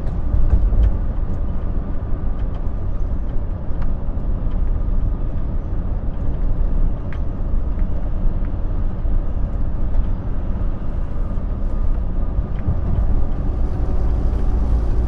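Steady low drone inside a Volvo semi-truck's cab at highway speed: engine and road noise with no change in pace, and a few faint clicks here and there.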